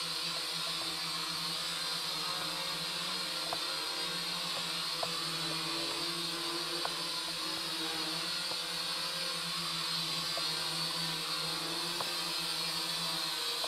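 Small toy quadcopter's four electric motors and propellers whirring steadily as it flies, with a few faint clicks.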